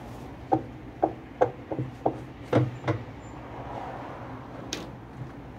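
Plastic wash basket of a MABE top-loading washer knocking against the outer tub as it is worked by hand: about seven dull knocks in the first three seconds, then a single sharper click near the end, over a steady low hum.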